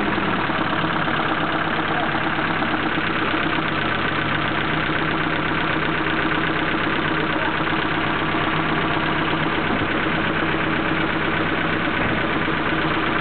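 Nissan 240SX's KA24E 2.4-litre four-cylinder engine idling steadily, with a fast, even ticking running through it: an engine noise that the owner suspects comes from the lifters.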